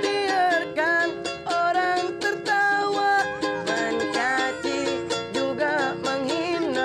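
Live busking music: a small ukulele strummed in a quick, even rhythm, with a wavering, bending melody line over it.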